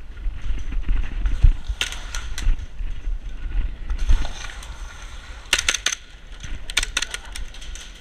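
Sharp snaps of airsoft gas pistols firing, a few single shots and then two quick strings of several shots, over a steady rumble of wind and handling on the microphone.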